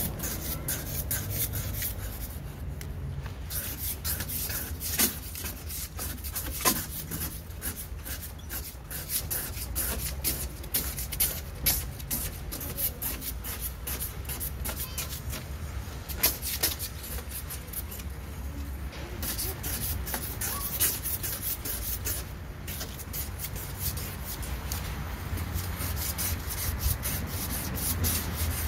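Long-handled scraper blade scraping dried paint off a shop-window glass pane in continuous, rapid scratching strokes, with a few sharper clicks along the way.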